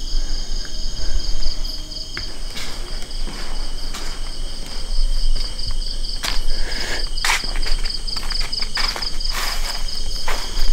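Insects trilling steadily in a high, finely pulsing chorus, with a few scattered footsteps.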